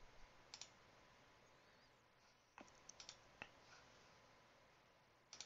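Faint computer mouse button clicks, about five short single clicks spread over a few seconds, over quiet room tone.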